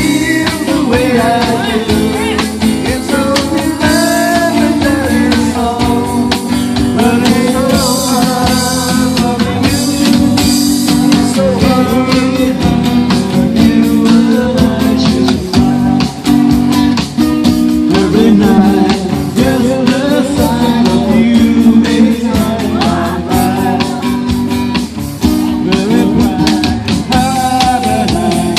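A live band jamming: a singer over guitar-led rock music with a steady beat.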